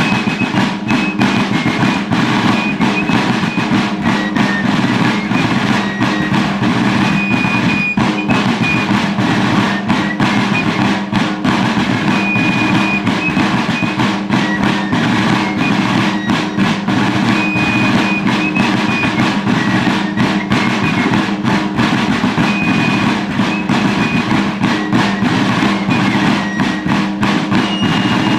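A Civil War-style fife and drum group playing: several field drums beaten in continuous rolls and rapid strokes, with a fife's high melody over them. It keeps going at a steady level.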